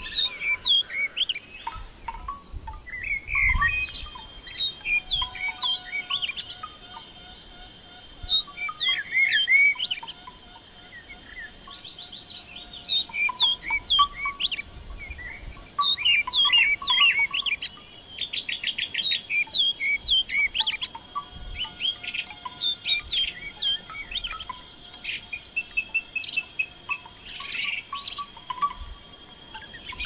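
Several songbirds chirping and calling in quick overlapping short notes, with a fast even trill about two-thirds of the way through. A faint steady high insect drone runs behind them.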